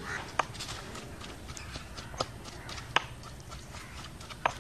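Quiet outdoor background with four short, sharp clicks spaced irregularly across a few seconds.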